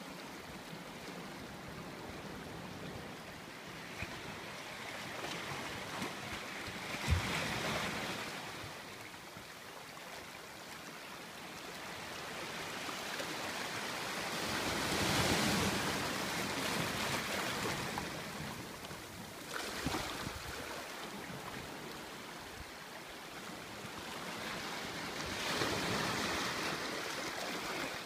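Small waves washing in over the shallows and rocks at the shoreline, the wash swelling and fading three times, loudest in the middle. A single short knock about a quarter of the way in.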